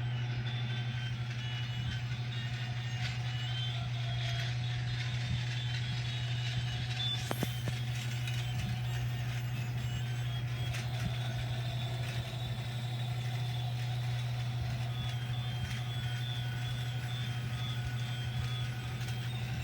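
Toy train's electric motor running with a steady, unchanging low hum, with light ticks over it.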